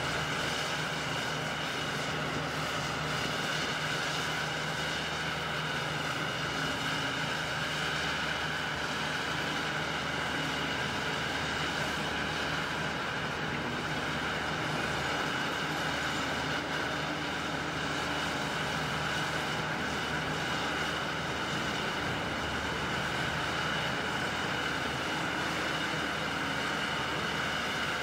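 Caterpillar 6015B long-reach demolition excavator running steadily under working load: a continuous engine drone with a steady high whine over it.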